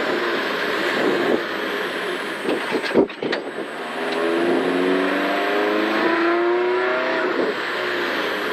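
Rally car heard from inside the cockpit, engine and road noise as it slows for a speed bump, with a sharp knock about three seconds in as it goes over the bump. The engine then pulls hard, its note rising steadily for a few seconds as the car accelerates away in third gear.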